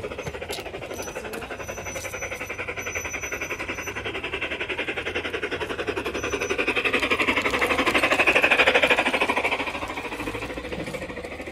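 Garden-scale model train, a red tender engine pulling orange coaches, running past on outdoor track with a fast, even rattling clatter. The clatter grows louder to a peak about eight seconds in as the train passes close, then falls away.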